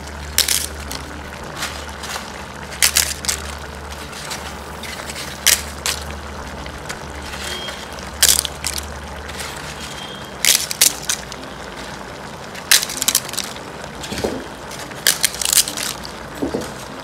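Crisp fried appalams (papads) crunching and crackling as they are broken up and added to a pot of chana dal kootu, in sharp irregular crunches every second or so. A low steady hum runs under them and stops about ten seconds in.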